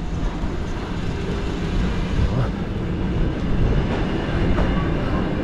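Riga Carriage Works (RVR) electric commuter train running at the platform, a steady low mechanical noise with faint tones over it and a faint rising tone near the end.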